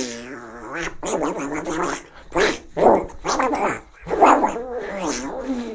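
A man imitating a dog with his voice: a string of growls and barks, one after another with short breaks.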